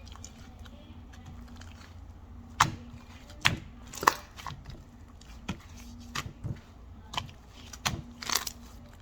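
Irregular light taps and clicks of small objects being handled, about a dozen over several seconds, the sharpest between two and a half and four seconds in, over a low steady hum.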